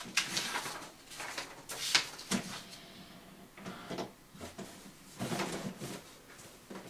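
Sheets of paper being handled and slid into the paper tray of an HP all-in-one inkjet printer, rustling and scraping in several short bursts.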